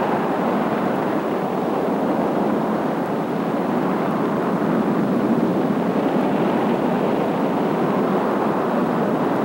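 Steady rushing roar of a storm at sea: wind and heavy waves.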